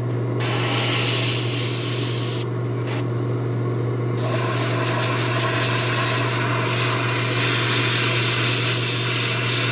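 Gravity-feed airbrush spraying paint: a steady hiss of air that stops for about a second and a half near the three-second mark, then resumes. A steady low hum runs underneath.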